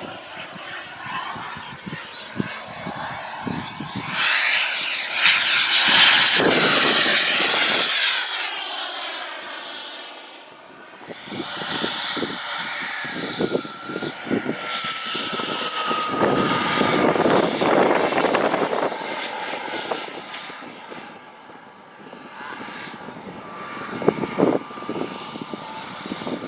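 Merlin 90 turbine of a model jet flying past twice, a rushing roar with a high whine that bends in pitch as the jet approaches and goes away. Wind buffets the microphone throughout.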